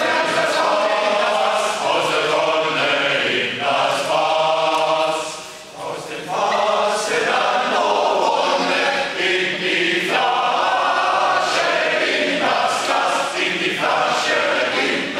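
Choir singing a cappella under a conductor, holding sustained chords in phrases, with a brief break between phrases about five and a half seconds in.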